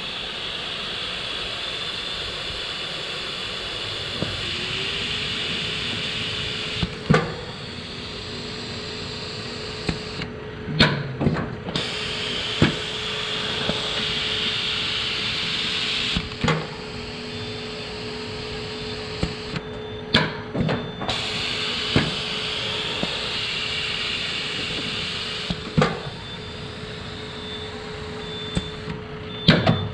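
Komfi Amiga 36A thermal laminator running a short job: a steady whir and blowing hiss, with a motor tone that rises and settles a few seconds in, and irregular clicks and knocks of the feed mechanism.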